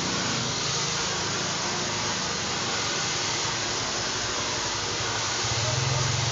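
Handheld hair dryer blowing steadily while hair is dried. About five and a half seconds in, a steady low hum joins it.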